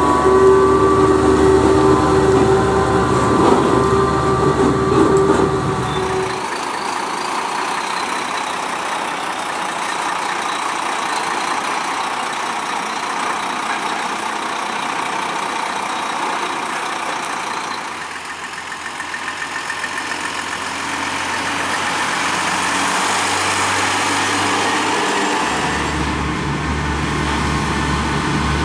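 UD Quester heavy trucks with GH8E and GH11 diesel engines, heard one after another as each drives past. Deep engine rumble with a steady tone over it at first, lighter running with more road and tyre noise in the middle, and a heavy diesel sound building again near the end as a tanker truck approaches.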